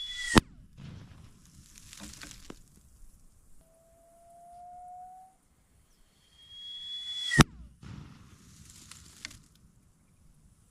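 60mm mortar firing twice, about seven seconds apart: each round goes off with a sharp bang, preceded by a brief high whistle.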